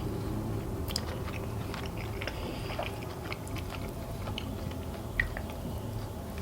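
A person chewing and biting fried chicken wings, with scattered crunchy clicks and one sharper crack about five seconds in.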